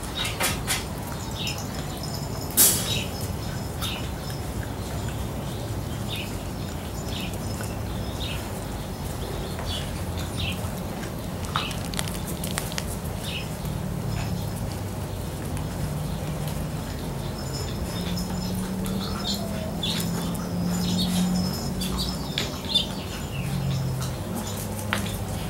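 Seven-week-old Labrador retriever puppies playing on a concrete floor: scattered sharp clicks of claws and toys, with short high chirps throughout over a steady low hum.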